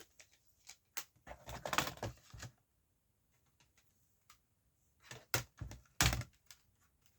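CD cases and packaging being handled: scattered clicks and short rustles, with a louder knock about six seconds in.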